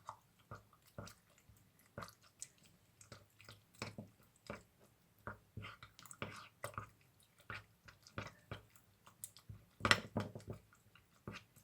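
Mashed viburnum berries and honey being stirred together, giving soft, irregular wet squelches and clicks a couple of times a second, with a louder cluster near the end.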